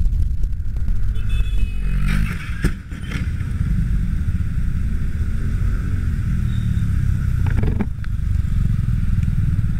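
Motorcycle collision with a car on a wet road: a brief high squeal about a second in, then a hard impact and scraping clatter about two to three seconds in. A steady low rumble of wind on the microphone runs under it all.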